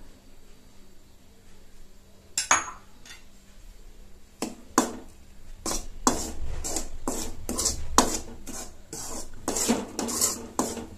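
Steel spoon scraping and knocking against a metal kadai while stirring rice flour as it is dry-roasted. A single clank about two seconds in, then repeated scraping strokes, about two a second, from about four seconds in.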